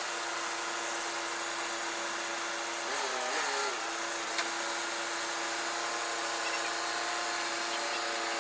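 Loader engine running steadily with a whining, drill-like tone, its pitch wavering briefly about three seconds in.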